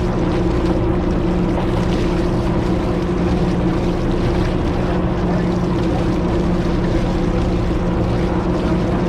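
Large party boat's engine running steadily, a constant low hum over a wash of wind and water noise.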